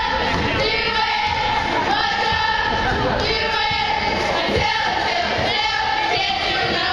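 Cheerleading squad chanting a cheer in unison, the girls' voices drawing out the words in long held phrases.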